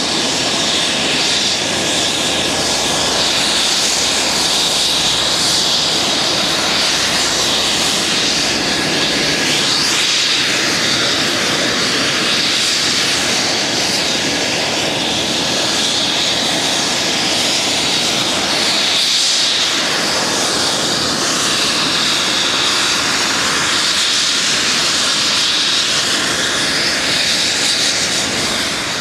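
A Douglas DC-3 Dakota's two radial piston engines running loudly and steadily as it lands and rolls out on the runway, with slow swells in the noise as it passes.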